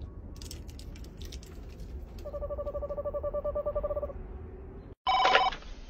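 Screech owl giving a rapid, even trill of about two seconds, starting about two seconds in. Near the end a brief, louder tone cuts in.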